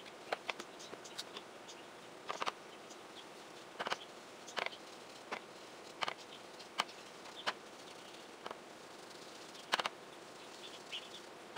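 Soft irregular taps of a homemade ink blending tool, a paint bottle topped with a foam sponge, dabbing distress oxide ink onto paper, about one dab every second.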